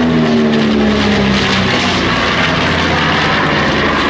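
B-25 Mitchell's twin Wright R-2600 radials and P-38 Lightning's twin Allison V-12s passing overhead in formation: a loud, steady propeller-engine drone whose pitch falls over the first second or so as the two warbirds go by and fly away.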